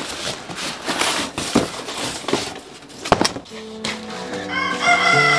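A cardboard box being handled and opened by hand: rustling and scraping cardboard with a few sharp knocks. About three and a half seconds in, guitar music comes in.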